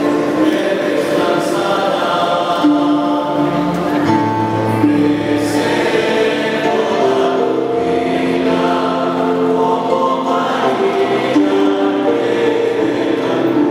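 A choir singing a slow liturgical hymn in long held notes that change step by step.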